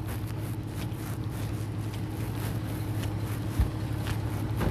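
Vehicle engines idling with a steady low hum, with one brief low thump about three and a half seconds in.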